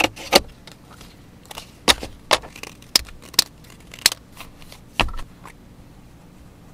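Scissors snipping through sheets of white paper: about eight crisp, separate cuts at irregular intervals. Near the end, one heavier knock as the scissors are set down on the desk.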